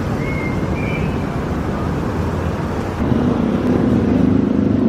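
Road traffic: car engines running close by, with a louder engine hum coming in about three seconds in. A brief high squeal sounds just after the start.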